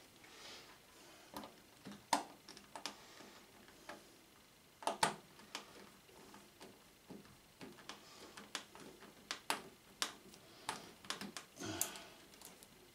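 Scattered small clicks and taps of wires and crimp connectors being handled and fitted into a screw terminal block, with a few sharper knocks about two and five seconds in, and again near the end.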